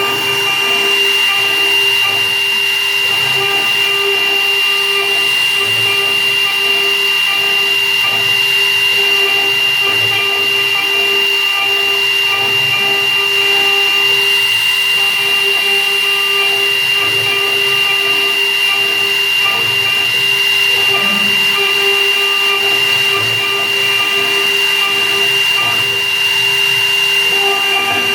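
Small CNC milling machine for jewellery rings running: a high-speed spindle with a steady high-pitched whine over a lower hum, unchanging throughout.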